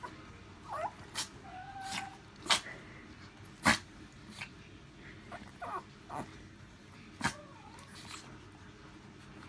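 Chihuahua sneezing again and again in a fit, about five short sharp sneezes, the loudest two a little more than a second apart, with short high squeaky whimpers between them.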